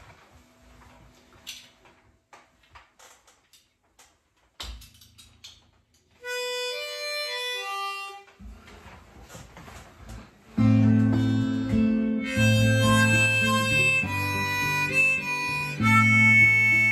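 A few soft handling clicks and knocks, then a short run of harmonica notes about six seconds in. From about ten seconds in, a harmonica plays a melody over strummed acoustic guitar chords, louder than the opening.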